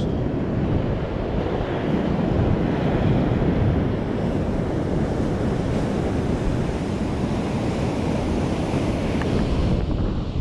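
Ocean surf breaking on the shore, mixed with wind buffeting the microphone; a steady, even noise throughout.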